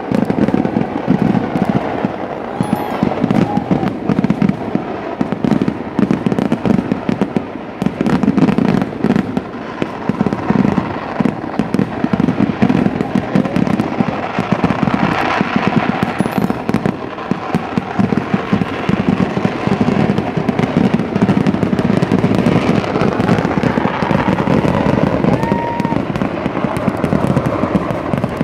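Kerala vedikkettu temple-festival fireworks: a dense, unbroken barrage of firecracker and shell explosions, many blasts a second with no pause.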